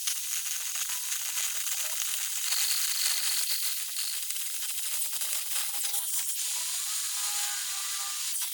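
Electric arc welding: a steady high-pitched crackling hiss from the arc, with faint gliding tones about six to seven seconds in.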